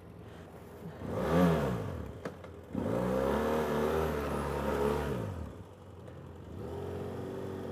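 BMW F800GS parallel-twin engine pulling away and accelerating. Its pitch rises and falls briefly about a second in. A louder, longer run of acceleration starts about three seconds in and eases off a little after five seconds, then the engine picks up more softly near the end.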